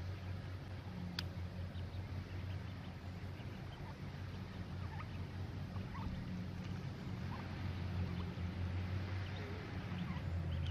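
Mallard ducklings peeping faintly in short scattered calls while they feed with the hen, over a steady low rumble. A single sharp click sounds about a second in.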